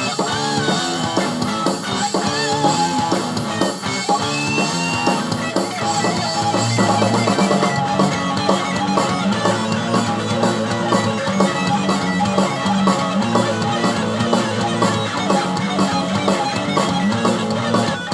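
Rock-style background music with guitar, bass and drums keeping a steady beat.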